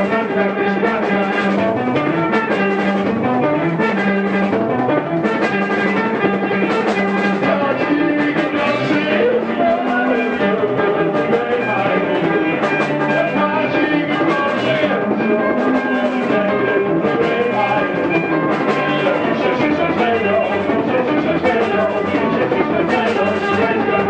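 Live recording of a post-punk band playing an up-tempo song, with drums keeping a steady beat under pitched instruments and no clear vocals.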